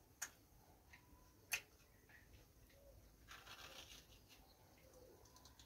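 Faint handling of a broken bael fruit shell while eating from it: two sharp clicks in the first second and a half, then a short scratchy rustle about three seconds in, with near silence between.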